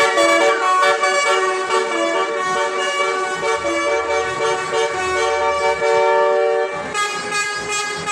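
Indonesian bus 'telolet' musical horn, a multi-trumpet air horn, playing a tune of loud held notes, several sounding together, that change pitch every fraction of a second.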